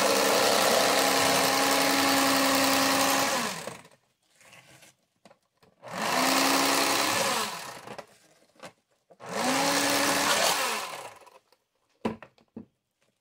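Toastmaster electric fillet knife running in three bursts as it cuts through a walleye fillet, the motor whining up to speed and winding down each time. The first run lasts about four seconds and the other two under two seconds each, followed by a few light taps near the end.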